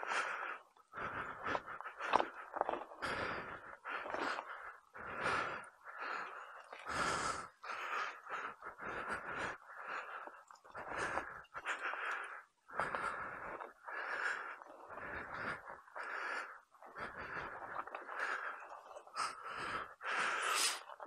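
A person breathing hard close to the microphone, in quick irregular puffs with sniffs.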